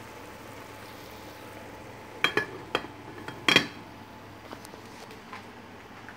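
Glass pot lid clinking against the rim of a metal cooking pot several times as it is set back on, the loudest strike about three and a half seconds in, over a steady hiss and low hum.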